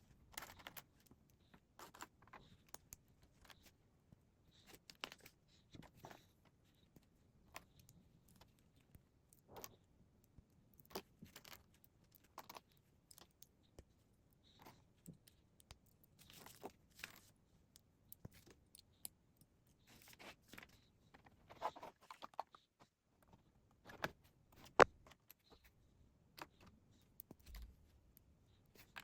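Plastic Lego pieces being handled and snapped together: scattered small clicks and rattles at irregular intervals, with one louder sharp click near the end.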